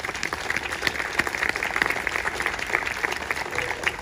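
Audience applauding: many hands clapping in a dense, steady spatter.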